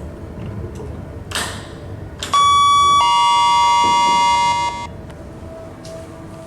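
Electronic lift chime: a high tone sounds, a second, lower tone joins about half a second later, and both are held for about two seconds before cutting off suddenly. It is the loudest sound, over the low hum of the lift.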